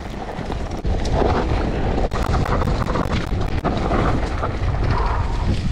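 Mountain bike riding over a dirt and gravel trail: wind rushing over the microphone and the tyres rolling on the ground, with sharp clicks and rattles from the bike. It gets louder about a second in.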